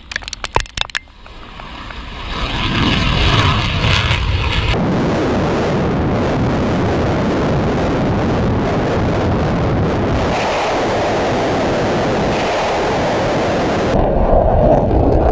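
Missile launch blast crackling during the first second, with debris flying. It gives way to a long, steady rushing roar of multiple rocket launcher rockets climbing away, with wind buffeting the microphone.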